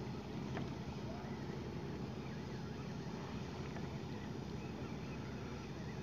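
Steady low hum of a boat's engine idling.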